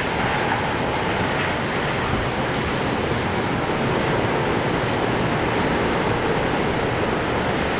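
Steady roar of heavy storm surf breaking against the seafront, mixed with wind.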